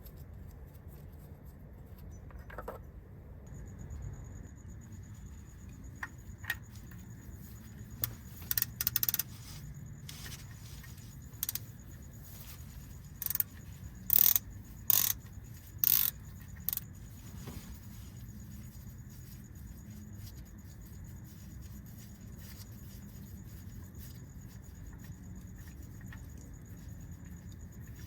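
A series of short, sharp metallic clinks and jingles, about a dozen in loose groups, loudest in the middle, over a low steady rumble and a faint high-pitched whine.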